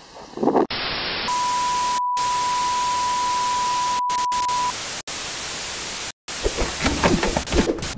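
Old television static hiss, with a steady test-tone beep over the colour bars for about three seconds. The hiss cuts out briefly several times, and near the end other sounds come up under it.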